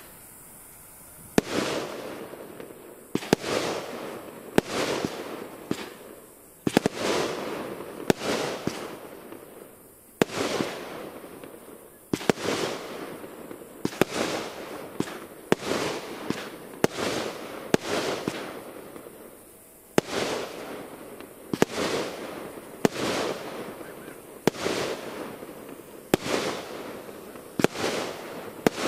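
Fireworks display: aerial shells bursting one after another, a sharp bang every second or two, each followed by a fading echo. The bangs begin about a second and a half in.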